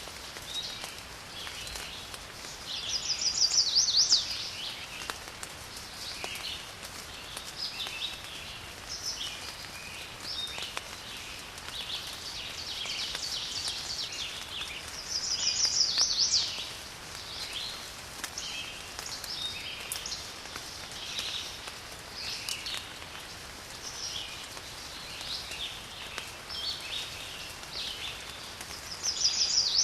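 Several birds singing and calling over a steady hiss of light rain. One bird repeats a loud, rising trilled song three times, about every twelve seconds.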